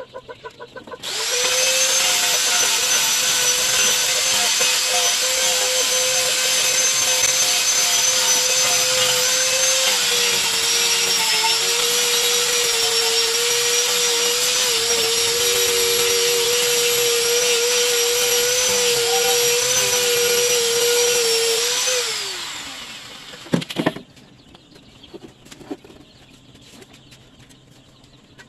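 Electric angle grinder with an abrasive disc sanding a wooden slat: it starts about a second in and runs with a steady high whine, its pitch sagging slightly under load. After about twenty seconds it is switched off and winds down with a falling whine, followed by a single sharp knock.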